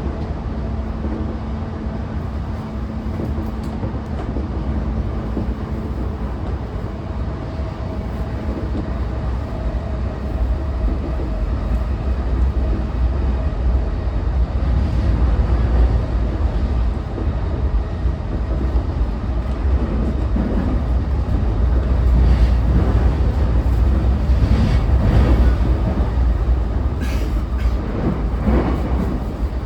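JR East E233-5000 series electric train running at speed, heard from inside a motor car: a deep steady rumble of wheels on rail, with a thin steady hum in the first few seconds that fades. The rumble grows louder in the second half, with sharp clacks of wheels over rail joints near the end.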